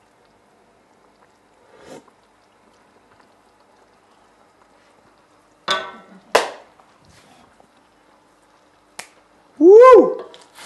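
Metal cooking utensils knocking and clinking, a ringing clink then a second knock a little past halfway, over a faint steady hum. Near the end comes a loud, short vocal exclamation that rises then falls in pitch, a man reacting to a taste of the food.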